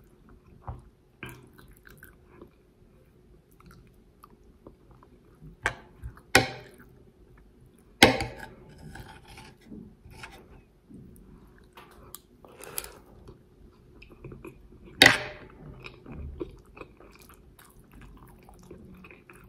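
A person eating rice with a metal spoon from a plate: quiet chewing and mouth sounds, broken by a few sharp clicks and smacks, the loudest about eight and fifteen seconds in.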